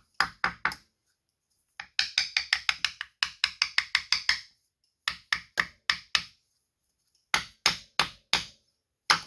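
Hammer tapping a chain case saver onto a Yamaha Banshee's engine case, driving it down to seat it fully. Quick runs of sharp taps, about five a second, with short pauses between the runs.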